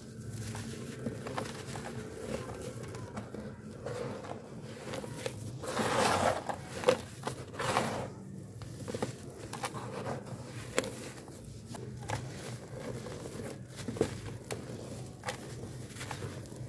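Dry, gritty charcoal chunks crunching and crumbling between bare hands, with many small crackles and loose grit pattering down into the powder. The crunching grows louder about six seconds in and again near eight seconds.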